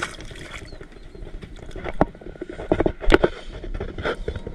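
Irregular knocks and bumps on a plastic kayak as gear is handled aboard, the loudest two around two and three seconds in, over a steady rush of wind on the microphone.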